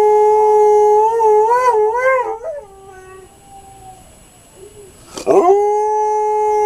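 Alaskan Malamute howling: one long, steady note that starts to waver up and down in pitch and breaks off about two and a half seconds in. After a pause of roughly two and a half seconds, a new howl sweeps up from low and settles on one held note.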